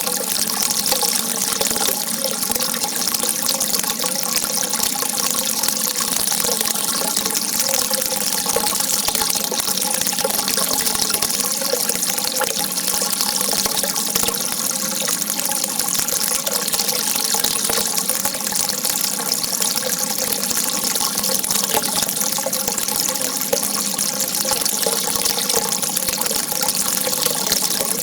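A jet of water rushing steadily, an even hiss with no pause or change.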